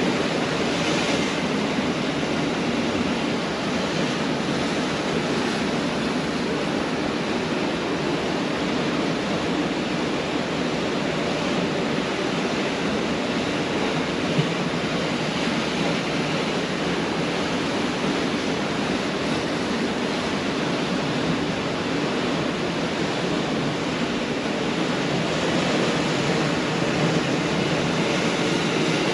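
Pacific Ocean surf: waves washing continuously on the beach, a steady rush of noise that swells slightly near the start and again near the end.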